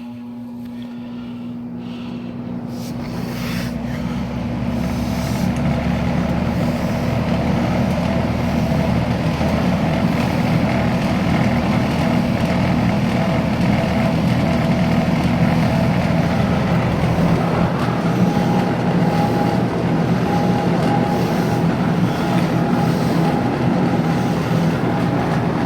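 Electric box fan starting up in reverse on low speed: a steady motor hum with the rush of air building over the first several seconds as the blades come up to speed, then running evenly. The sound begins to fade right at the end.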